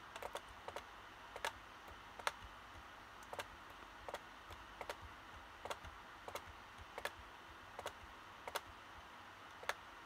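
Faint, sharp clicks of a laptop's buttons being pressed, about fifteen at irregular intervals, a few in quick pairs, over a low steady hiss.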